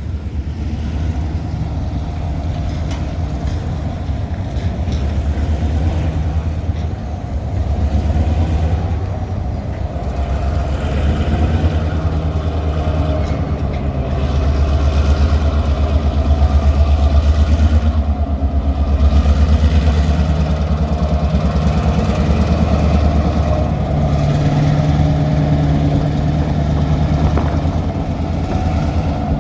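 A vehicle engine running with a steady low rumble that swells for several seconds around the middle.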